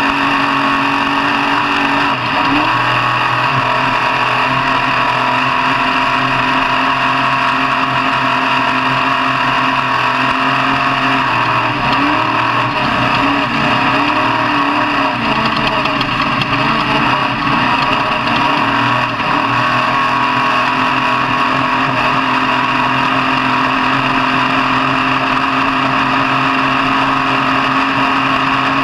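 Off-road truck engine running steadily under load. Its pitch rises and falls several times about halfway through as the throttle varies, then settles back to a steady note.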